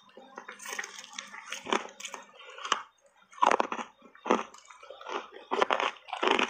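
Reshaped ice coated in matcha powder being crunched and chewed with a full mouth: wet, irregular crunches that grow louder about halfway through.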